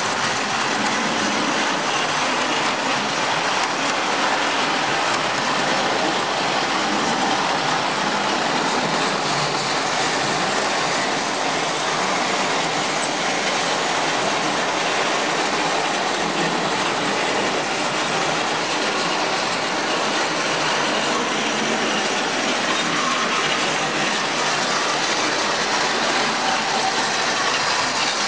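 ACE Trains 0 gauge electric model of a Gresley A4 Pacific locomotive running steadily along the track with its train, wheels rolling over the rails.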